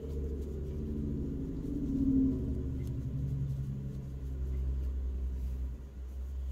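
A low, steady rumble with a droning hum over it, starting abruptly; the hum fades out about five seconds in while the rumble carries on.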